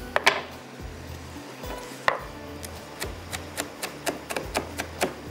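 Kitchen utensils tapping and knocking on cookware: a few sharp knocks in the first two seconds, then a quicker run of light taps, about four a second.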